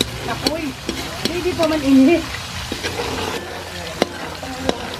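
Coconut milk boiling and sizzling in a wok as it cooks down, with the curds forming and the oil separating out. A metal spoon stirs it, scraping and clicking against the pan. A short voice sounds in the background about two seconds in.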